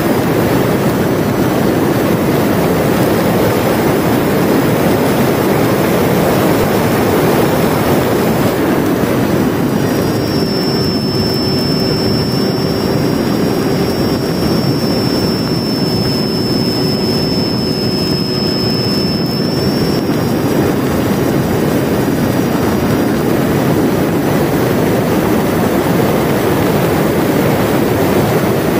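Onboard sound of a Mini Talon RC plane in flight: a steady rush of wind and the spinning propeller driven by its Sunnysky 2216 brushless electric motor. About ten seconds in, a thin high motor whine with a lower hum comes in, lasts about ten seconds, then fades back into the rush.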